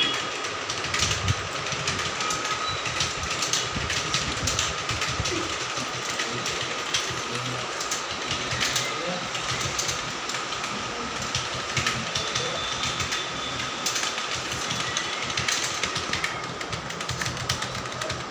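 Computer keyboard keys being typed rapidly and unevenly during number typing practice, a continuous stream of key clicks. A steady faint high hum runs beneath.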